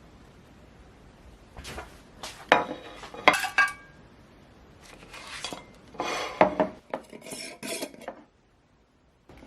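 A spoon clinking and scraping against a bowl in two spells of stirring or scooping, a few clinks ringing briefly; the sound cuts off suddenly near the end.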